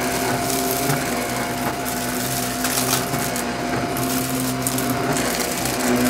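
Shark upright vacuum cleaner running with a steady whine, close-miked at the brushroll, with crackling and rattling as small pellets and grit are sucked up off the carpet.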